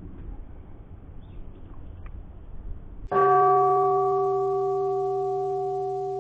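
Low outdoor background noise with a few faint bird chirps. About three seconds in, a single bell-like chime is struck and rings on several steady pitches, fading slowly.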